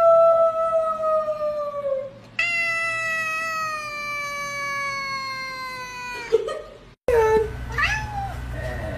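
A tabby cat giving two long, drawn-out meows, each held for several seconds and slowly falling in pitch. After a brief break about seven seconds in, a second cat gives short meows.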